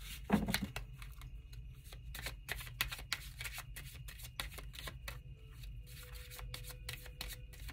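A deck of oracle cards being shuffled by hand: quick, irregular clicks of cards slipping against each other. A brief low voice sound comes just after the start.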